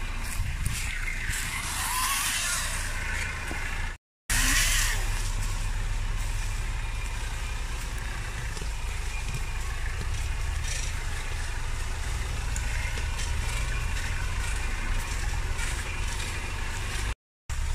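Off-road 4x4's engine running at low revs, a steady low rumble. The sound cuts out abruptly twice, about four seconds in and near the end.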